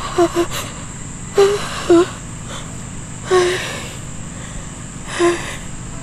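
A woman sobbing: a series of short, catching cries and gasps, about six of them, spaced a second or two apart.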